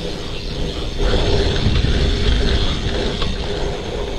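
A BMX bike rolling over packed-dirt jumps, with wind buffeting the rider-mounted microphone as a continuous low rumble. The rear hub's freewheel ratchet ticks as the bike coasts. The rumble grows louder about a second in.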